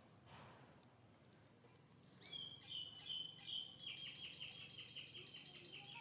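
A songbird singing: a few clear high whistled notes beginning about two seconds in, then a fast trill of repeated notes, about six a second.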